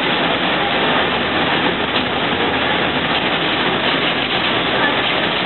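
City bus engine and road noise heard from inside the cabin as the bus drives along, a steady, even noise.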